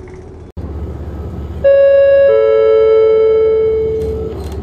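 Two-note passenger-information chime of an HLB regional train's announcement system: a higher note, then a lower one about half a second later, both ringing on for about two seconds. Under it runs the steady low rumble of the train, which starts after a brief cut about half a second in.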